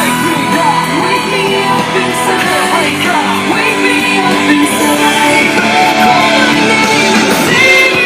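A song with a singing voice and band instruments, played loud through Pioneer S-HTD510 surround speakers under test.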